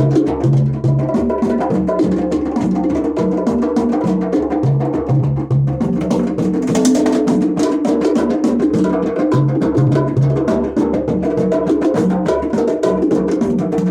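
Percussion music: fast, even clicking strokes like a wood block over drums and a repeating low bass figure of short notes in twos and threes.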